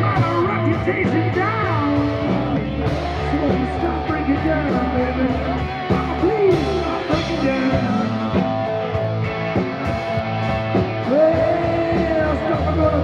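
Live rock band playing: a lead singer over electric guitars, bass guitar and a drum kit.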